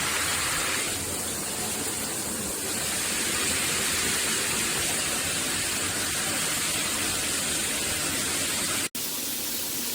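Water spraying from a NearMoon stainless steel rainfall shower head, a steady hiss of falling water that cuts out for an instant near the end and then carries on.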